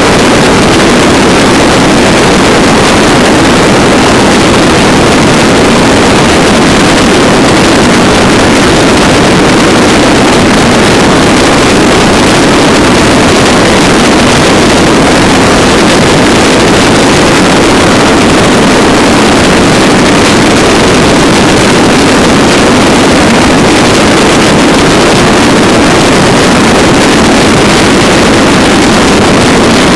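Motorcycle cruising at highway speed: a steady, loud roar of wind on the microphone mixed with the engine's drone, unchanging throughout.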